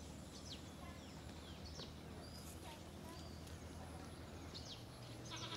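Quiet riverside ambience with scattered short bird chirps, each a quick slide in pitch, over a low steady background hum. Right at the end a bleat begins.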